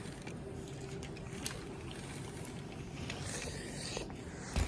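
Steady road and engine noise heard from inside a moving car, with a faint hum, a light click about a second and a half in, and a short thump near the end.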